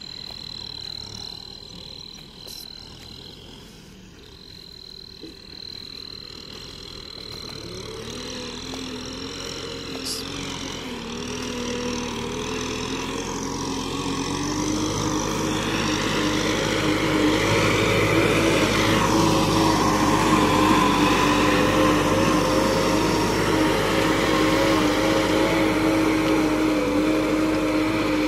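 Kubota tractor's diesel engine running steadily under load as it pulls a disc plough through soil, growing much louder over the first half as it comes closer, then holding loud.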